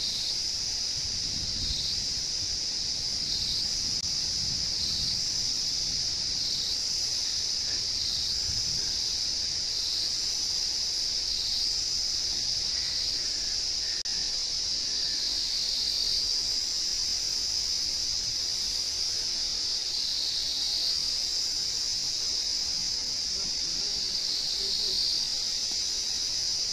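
A steady, high-pitched chorus of insects that dips slightly about every second and a half.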